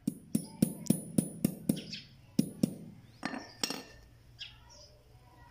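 Hammer blows on a rusty rivet resting on a piece of steel railway rail used as an anvil: a quick run of about seven sharp metallic clinks, then two more, then another two. After that it goes quiet.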